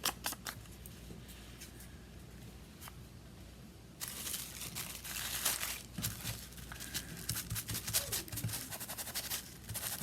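Paper and cardstock scraps rustling and crinkling as they are handled, after a quieter first few seconds with a few light taps; the rustling starts about four seconds in.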